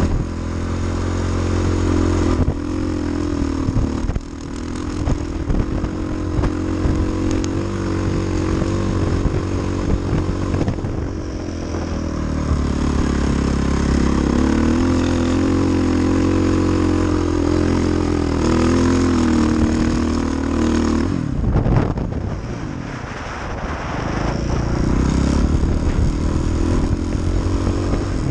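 KTM 450 XC-F dirt bike's single-cylinder four-stroke engine pulling through sand, its revs rising and falling with the throttle. About three-quarters of the way through it eases off briefly, then is opened up again.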